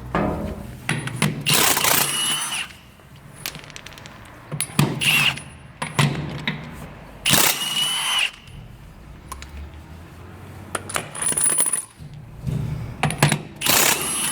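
Milwaukee M18 half-inch brushless impact wrench in its slower first gear, hammering wheel nuts loose in several short bursts of metallic rattling with a motor whine. Each nut comes off easily.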